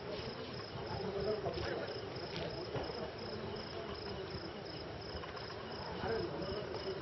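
Crickets chirping, a high-pitched pulse repeating about three times a second, over a low rumble of background noise.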